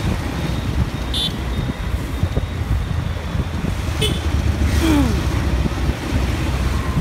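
Low wind rumble and road noise from riding a scooter in city traffic, with short vehicle horn toots about a second in and again near four seconds.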